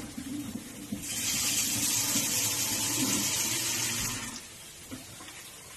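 Water running from a kitchen tap in a steady hiss, turned on about a second in and shut off about three seconds later.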